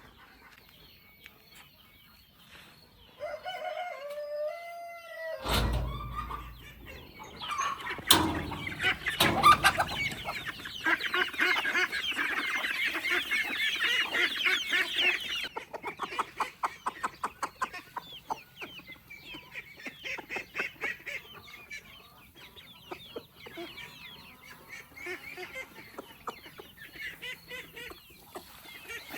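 A rooster crows once, about three and a half seconds in, followed by a low thump. Then chickens cluck and cackle, densest and loudest in the middle, thinning into scattered clucks near the end.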